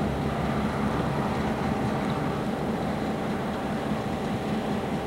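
EMD GP9R diesel locomotive with a 16-cylinder 567 engine passing close beneath, its engine running with a steady, deep hum.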